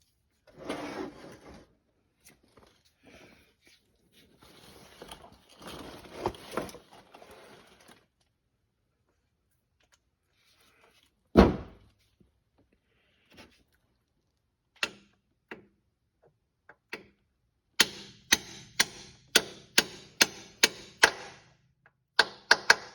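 Hammer blows on a seal driver, tapping a new seal into the bore of a 4T65E transmission case. After some handling and a single heavy knock, a steady run of sharp taps starts about two-thirds of the way through, roughly two to three a second.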